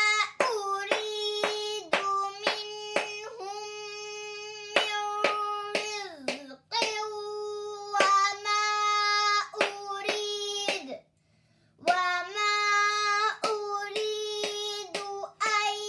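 A high voice chanting Arabic Quranic words slowly, syllable by syllable, with long held notes. A pointer taps on the page about twice a second, marking each syllable as it is read. The chanting breaks off for about a second a little past the middle.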